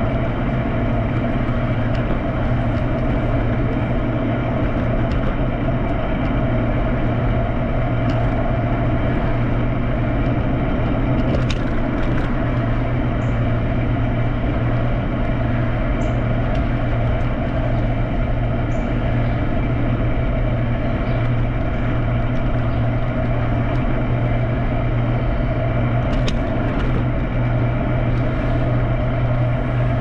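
Steady low hum and rolling noise of a vehicle moving along a street at an even speed, with a few faint clicks.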